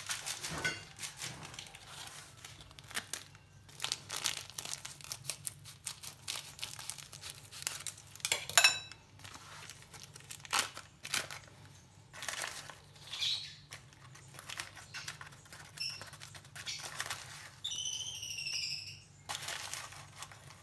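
Foil spice packet crinkling and rustling in the hands, with scattered crackles and clicks as it is opened and masala is spooned out. A brief high warbling chirp about three seconds before the end.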